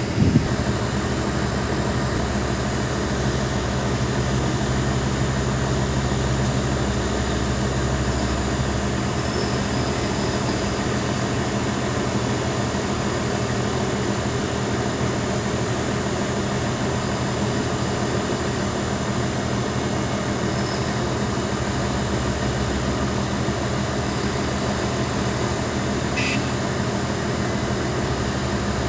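Excavator's diesel engine running at a steady speed, a constant low drone with an even pitch, with one brief knock right at the start.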